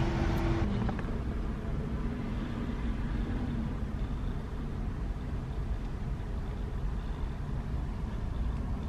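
Steady low rumble of a car engine idling, heard from inside the parked car's cabin.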